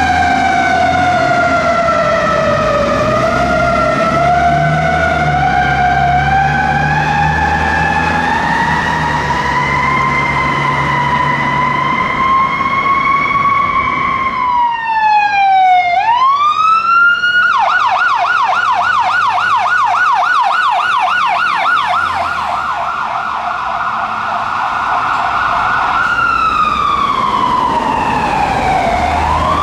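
Fire truck sirens on a code 3 response. First a slow wail gliding down and back up over a diesel engine's low rumble. After a cut about halfway, a siren sweeps down and up, switches abruptly to a fast yelp, then returns to a slow wail near the end.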